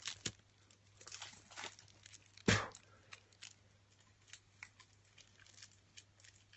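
Plastic shrink-wrap being picked at and peeled off a trading-card deck, with scattered crinkles and small tearing clicks. One dull thump about two and a half seconds in.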